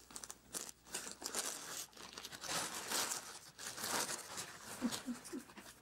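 Crinkling and rustling of crinkly plastic being handled, with many short sharp crackles. About five seconds in come three short, low vocal sounds.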